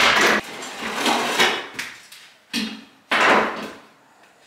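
Old wooden wall lath strips being ripped off the studs: several sudden loud cracks and rips of wood, the longest about three seconds in.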